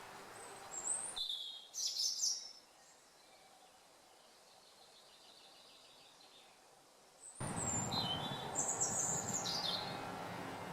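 Small songbirds calling and singing in short, high chirping phrases over a steady outdoor background noise. The background drops away abruptly about a second in, leaving a quiet stretch with a faint trill, and returns with more song about seven seconds in.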